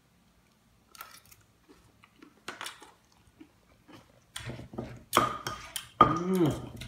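A wooden pestle pounding in a mortar, working a wet chilli, lime and fish-sauce mix. After a near-quiet start, a steady run of sharp knocks begins about four seconds in, roughly three a second, each with a short ring.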